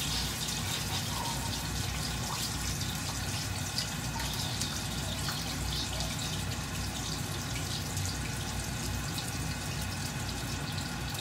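Pork belly deep-frying in a wok of hot oil: steady sizzling with many small pops and crackles.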